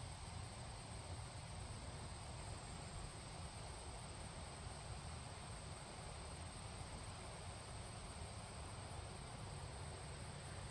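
Quiet outdoor ambience: a steady, high-pitched insect drone, like crickets, over a low rumble.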